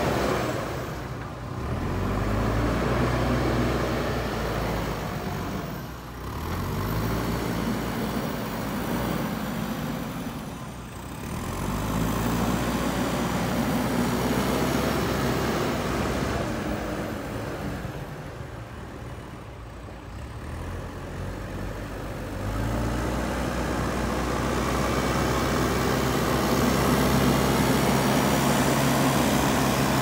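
JCB backhoe loader's diesel engine working, revving up and easing back several times as the machine moves and pushes soil.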